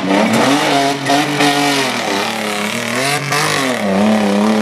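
Pickup truck engine revving hard as it is driven over a dirt obstacle course, its pitch swinging up and down as the throttle is worked, dipping about a second in and again near three seconds in.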